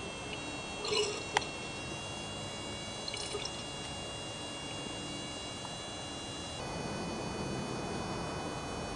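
Small 12-volt electric oil pump running steadily, oil trickling through the turbocharger's lubrication lines, with a single sharp click about a second and a half in.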